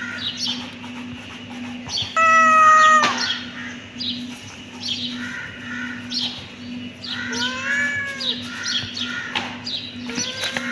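Kittens meowing: one loud, long meow about two seconds in that holds its pitch and then drops, and a softer meow that rises and falls near the end. Short high-pitched calls repeat about twice a second throughout.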